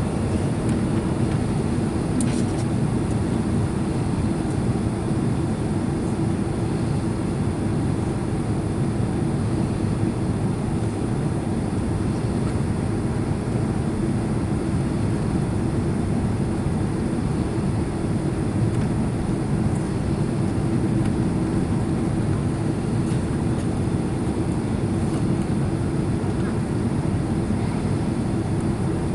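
Steady cabin noise inside a Boeing 767 airliner descending toward landing: engine and airflow noise with a steady low hum running through it.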